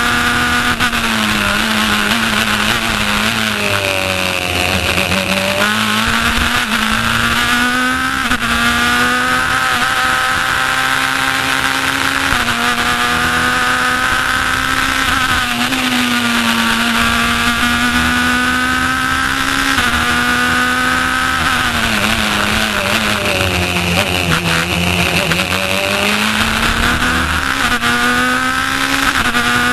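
Race car engine heard from the cockpit at full race pace, revving up through the gears with stepped upshifts, then dropping in pitch under braking and downshifts into slow corners about five seconds in and again near twenty-five seconds, before pulling hard again.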